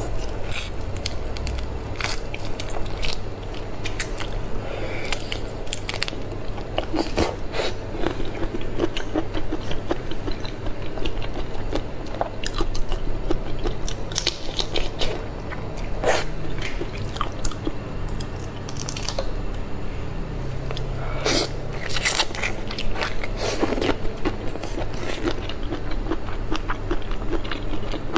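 Close-miked biting and chewing of soy-marinated whole shrimp, with irregular wet clicks and crunches as the shells are bitten and pulled apart by hand.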